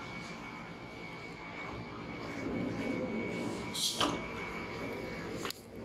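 Stationary electric commuter train standing at the platform with its doors open: a steady hum with a thin high whine from its running equipment. A brief hiss about four seconds in and a sharp click near the end.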